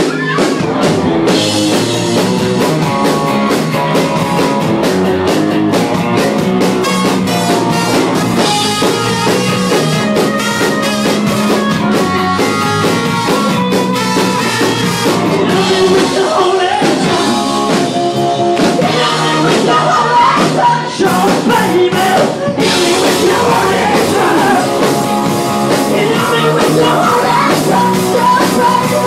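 Rock band playing live and loud: drum kit, instruments and a singer's voice over them.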